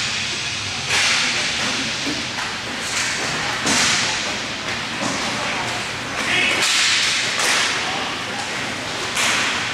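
Roller hockey play: a run of hissing swishes, about one a second, each starting sharply and fading quickly.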